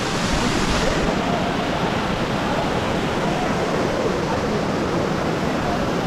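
Steady rushing of a waterfall, with faint voices of people in the background.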